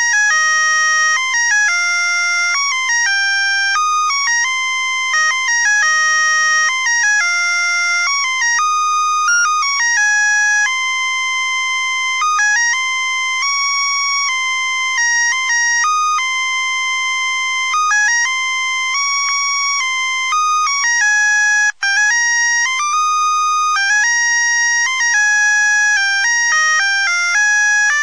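Musical Christmas light string's melody chip playing a Christmas tune as a run of high, buzzy electronic beep-notes, one note at a time, stepping quickly from pitch to pitch, with a momentary break about three-quarters of the way through.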